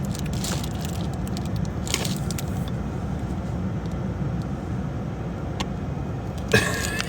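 Steady low rumble of a car, with scattered small clicks and crackles and a louder crinkling crackle about six and a half seconds in.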